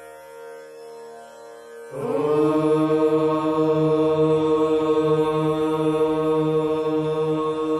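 A soft, steady musical drone, then about two seconds in a group of voices begins one long, steady held chant, much louder, over the drone.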